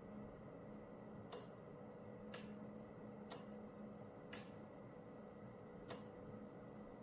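Five faint clicks, spaced about a second apart, over a faint steady hum.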